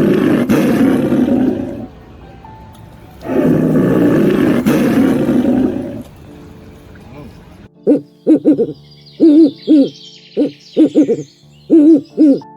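Two long, loud, rasping animal calls of about two seconds each. Then, over soft background music, a run of short pitched hoots comes in quick pairs and triples.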